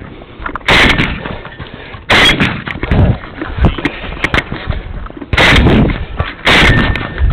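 Saiga firing a series of loud shots at uneven spacing during a timed 3-gun stage run: about four big reports, with smaller cracks between.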